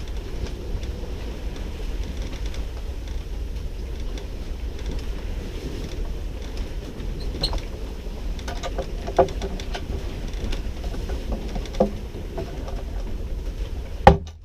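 Steady low rush of wind and water aboard a sailboat under way, with scattered small clicks and knocks in the second half and one sharp knock just before the end.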